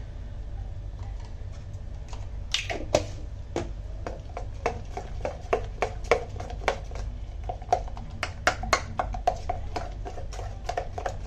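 A spoon clicking against the mixing bowl while thick gram-flour batter is stirred, in irregular taps about two or three a second, over a low steady hum.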